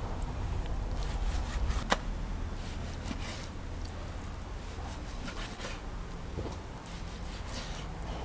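A large knife slicing raw liver on a wooden log cutting board: repeated soft strokes as the blade cuts through and scrapes on the wood, with one sharp tap about two seconds in, over a low steady rumble.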